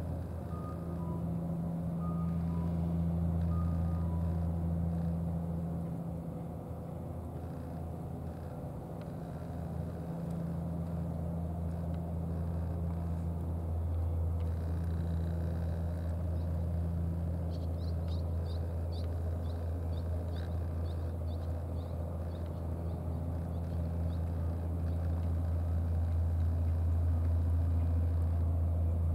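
A steady low engine hum. A few short beeps sound in the first four seconds, and a quick run of faint high ticks about eighteen seconds in.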